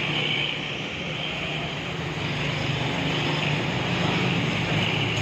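Steady low mechanical drone with a hiss over it.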